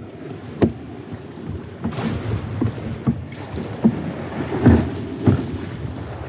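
Kayak paddle strokes splashing and small waves slapping against the hull while paddling out through shore break, with irregular splashes about once a second over a steady wash of water and wind on the microphone.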